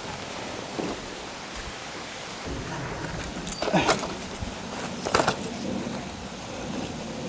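Two short bursts of jingling, clinking clatter about a second and a half apart, the first the louder, over a steady faint hiss.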